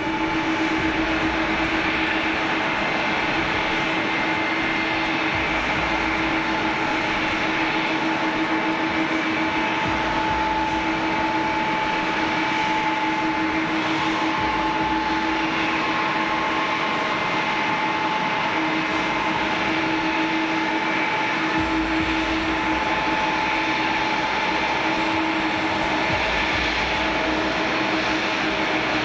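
Jet airliner engines running steadily: a constant whine of several held tones over a rushing noise, with no build-up or fade.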